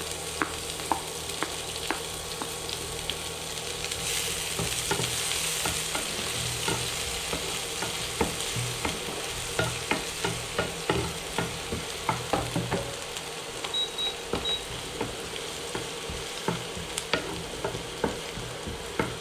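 Chopped onion sizzling in hot coconut oil in a nonstick frying pan while a spatula stirs it, with frequent sharp taps and scrapes of the spatula against the pan, more of them in the second half.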